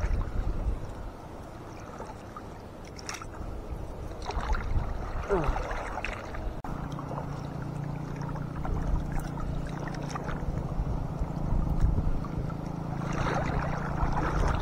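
Sea water sloshing and splashing around a wading fisherman as he handles fish and hauls a gillnet in the surf, with a low wind rumble on the microphone and scattered small splashes and clicks. From about seven seconds in, a steady low drone joins.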